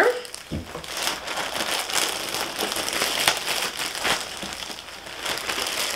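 Crinkling and crackling of plastic clothing packaging as it is handled and pulled open, with many small crackles throughout.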